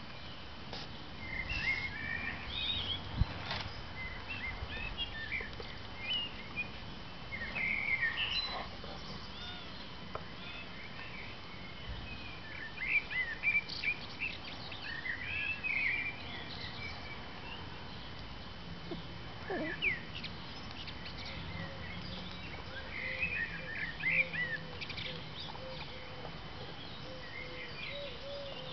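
Songbirds chirping and singing in short bursts, over a steady outdoor background with a few sharp clicks.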